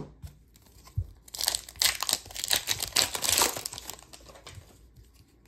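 Foil wrapper of a 2022-23 SP Authentic hockey card pack being torn open and crinkled: a dense crackle lasting about two and a half seconds, starting just after a soft knock about a second in.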